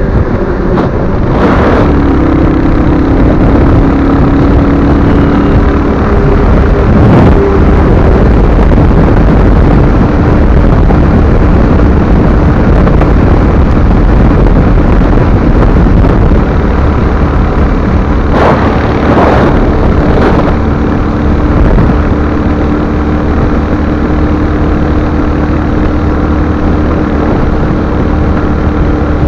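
Royal Enfield Hunter 350 motorcycle on the move: steady, loud wind noise on the microphone over the bike running. A few brief sharper sounds stand out, one near the start and a cluster about two thirds of the way in.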